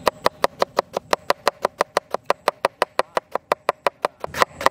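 Kitchen knife finely shredding a half cabbage on a wooden board: rapid, even strokes of about eight a second, each a crisp knock of the blade through the leaves onto the wood, with a brief pause near the end.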